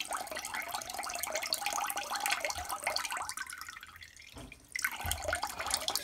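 A weak, thin stream of water from a refrigerator's plastic water-supply line splashing into a bucket of water. It thins out a little past the middle, then picks up again just before five seconds in. The flow through the water filter is low, which the owner blames on a cheap replacement filter.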